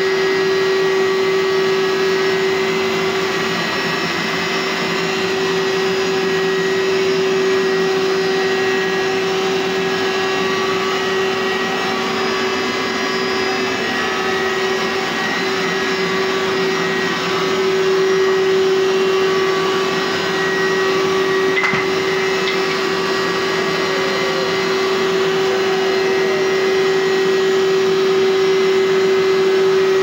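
Hoover SteamVac Widepath carpet cleaner running steadily, its motor giving a constant whine at one pitch over a rushing suction noise.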